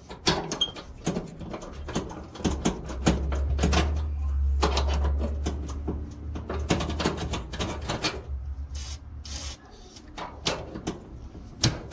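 Hand scraping and rubbing as dried, blackened grease is cleaned out of a dryer part, with irregular clicks and knocks. A low hum sits under it for several seconds in the middle.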